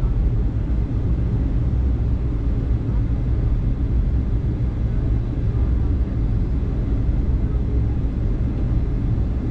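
Steady low rumble of a Boeing 757-200 airliner in flight: engine and airflow noise that holds even throughout.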